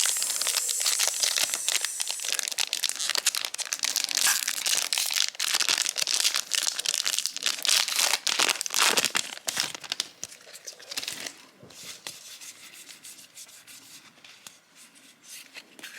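Foil wrapper of a trading-card booster pack being torn open and crinkled, a busy crackling that goes on for about ten seconds. It then drops to lighter rustling.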